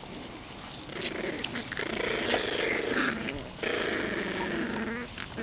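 26-day-old boxer puppies growling at each other while they play-fight, a rough low growl starting about a second in and running on with a short break in the middle.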